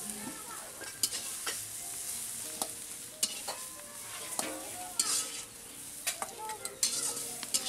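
Chopped leafy greens frying in a steel wok over a wood fire: a steady sizzle, with sharp metal clinks about every second as utensils stir and knock against the pan.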